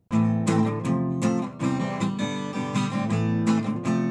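Guitar music of strummed chords, starting abruptly just after the start.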